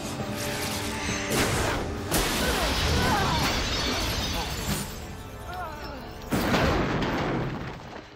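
Dramatic film score, with loud crashing and shattering impacts about a second and a half in, again about two seconds in, and near the end, as a sledgehammer is swung and strikes.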